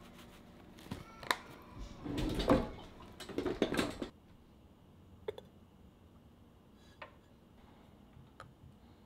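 Dishes and utensils clattering and knocking for about three seconds, then a few separate light clicks.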